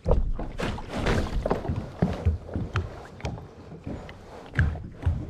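Water splashing and sloshing around a paddleboard, with irregular low bumps and knocks.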